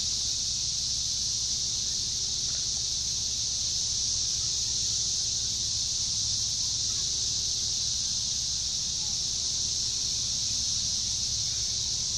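Steady chorus of insects, a constant high buzz that does not change, with a low steady rumble underneath.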